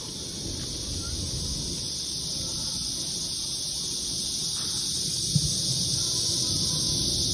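Riding a bicycle along a paved road: wind and tyre rumble on the microphone under a steady high hiss, growing slowly louder as the bike gathers speed, with a single short knock about five seconds in.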